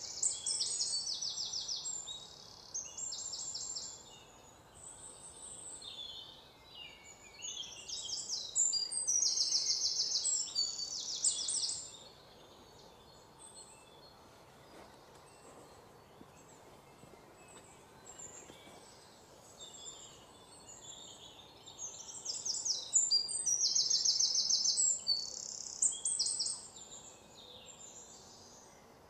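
Birds singing: high chirps and rapid trilled phrases come in bursts over a faint steady background, with quieter gaps between the bursts.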